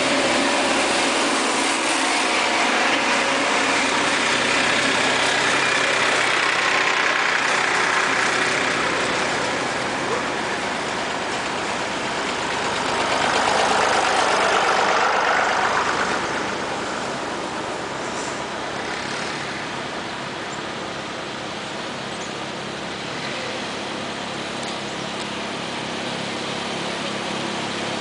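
Farm tractor engines running as a line of tractors drives past one after another. One tractor passes very close about halfway through, the loudest moment.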